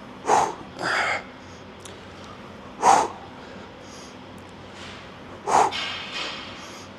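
A man's sharp, forceful breaths, short blasts spaced a few seconds apart, as he strains through the reps of a dumbbell shoulder press set.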